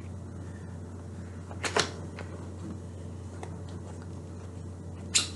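Packaging being handled: a cardboard box and foil packets of a foot peel mask rustling and crinkling in the hands, with two short, sharper crinkles, one under two seconds in and one near the end, over a steady low electrical hum.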